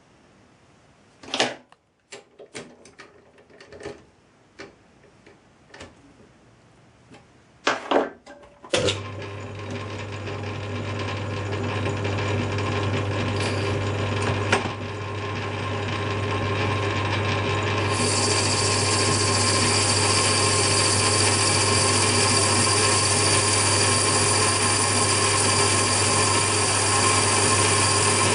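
Clicks and knocks of a brass workpiece and fixture being handled at a Myford lathe chuck. About nine seconds in, the lathe motor starts and runs with a steady hum that slowly grows louder. About eighteen seconds in, a steady high hiss joins it.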